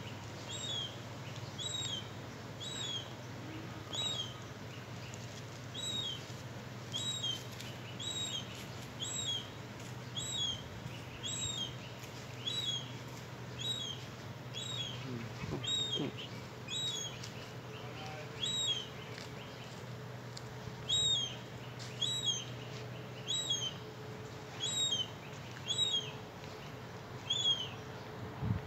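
Juvenile lesser black-backed gull repeating a high, thin piping call over and over, about one or two short slurred notes a second, the begging call of a young gull.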